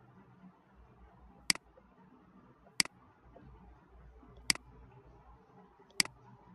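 Four sharp computer mouse clicks, each a quick press and release, spaced about a second and a half apart over faint room hiss.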